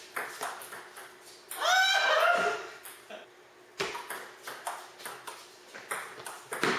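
Table tennis rally: the ball clicking off the paddles and the table in quick succession. A brief, loud, high squeal bends down in pitch about a second and a half in.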